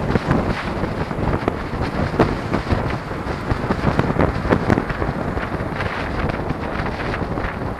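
Wind buffeting the microphone of a camera riding on a moving two-wheeler, over a steady bed of road and traffic noise, with many short gusty thumps.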